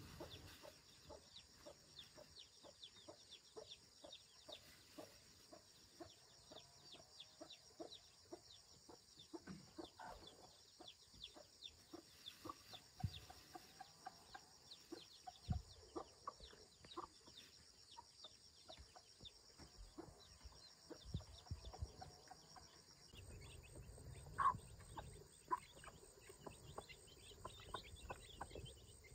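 Chickens clucking softly in a bamboo coop, faint, with many light clicks and taps scattered throughout and one sharper tap near the end.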